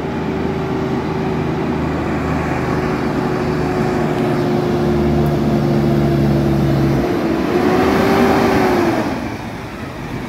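Kenworth T800 tanker truck's diesel engine running as the truck approaches and passes close by, getting steadily louder. Its engine note drops in pitch as it goes by, about nine seconds in.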